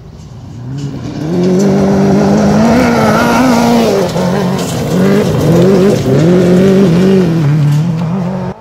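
Yamaha 600cc motorcycle engine in an off-road buggy, revving hard with its pitch rising and falling again and again. It starts quieter and becomes loud about a second in, as the buggy comes close.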